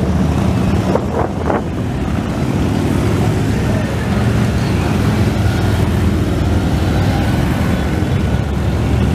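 A procession of Harley-Davidson V-twin motorcycles riding past one after another, their engines rumbling steadily.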